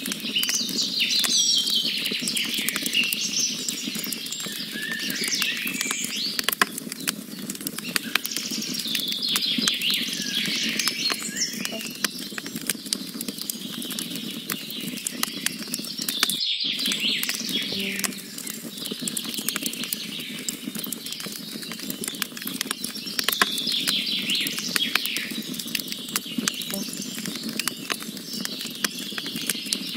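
Wood fire crackling with dense small pops and snaps, while birds chirp and sing over it. The sound drops out for a moment about halfway through.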